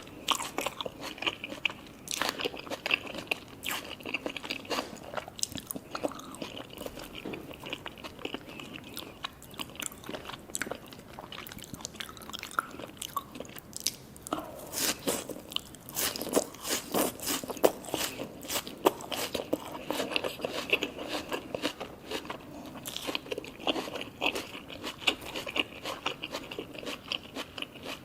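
Close-miked biting and chewing of sushi cones (temaki hand rolls): repeated crisp crunches and chewing throughout.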